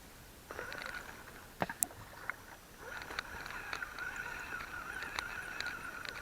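Axial Wraith RC rock crawler's electric motor and gear drive whining as it drives in short spurts: the whine starts about half a second in, drops briefly about two and a half seconds in, then holds steady. Sharp clicks and knocks of the tyres and chassis on rocks run through it, loudest just under two seconds in.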